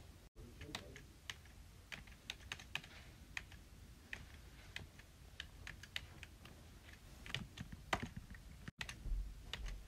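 A quick, irregular run of sharp, close-up clicks of varying loudness, made for ASMR. The run breaks off twice in brief dropouts.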